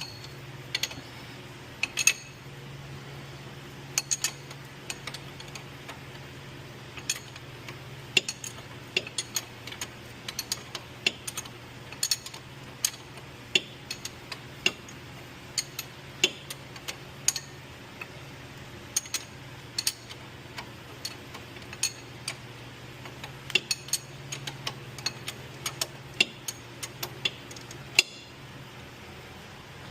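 Ratchet wrench clicking in short, irregular runs as the 21 mm ball-joint nut on the lower control arm is worked loose, over a steady low hum.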